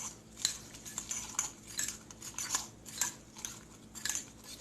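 A utensil whisking a raw egg with diced onion, tomato and seasonings in a dish. It clinks and scrapes against the sides about two to three times a second.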